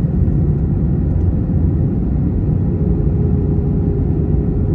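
Airliner cabin noise while climbing after takeoff: a steady low rumble of jet engines and rushing air, with a faint steady hum joining a little over halfway in.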